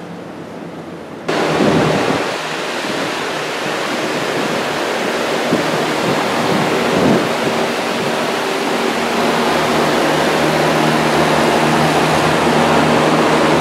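A loud, steady rushing noise that starts abruptly about a second in, after a quieter hiss, and holds on with some uneven low gusting.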